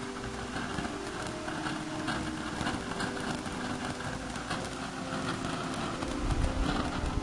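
Ground fountain firework spraying sparks: a steady hiss with many small crackles.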